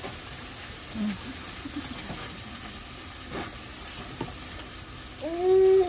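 Food sizzling as it fries in a hot pan, with faint clicks of a utensil stirring it. Near the end, a loud, drawn-out voice sound with a steady pitch cuts in over the sizzle.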